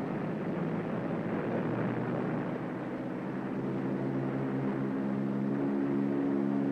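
Supermarine Stranraer flying boat's twin radial engines running: a rushing noise with a steady droning hum that firms up about two seconds in and grows stronger.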